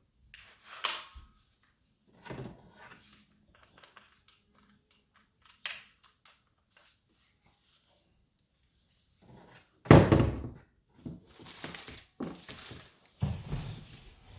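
Handling sounds from unboxing a small electric saw and its packaging: scattered clicks, knocks and rustling, with a loud thump near ten seconds in as something is set down, then more knocks and rustles. The saw's motor does not run.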